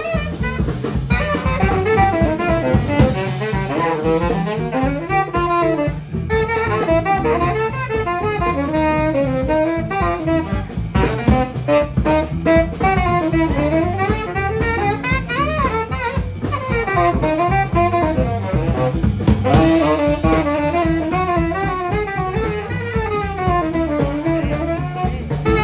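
Live small jazz combo: a saxophone solos in quick, winding runs over upright bass, electric guitar and a drum kit with cymbals.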